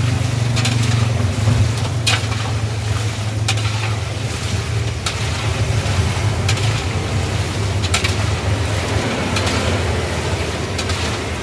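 Batagor balls deep-frying in oil in a steel wok while a perforated metal skimmer stirs and tosses them, the skimmer scraping against the wok about once every second and a half. A steady low hum runs underneath.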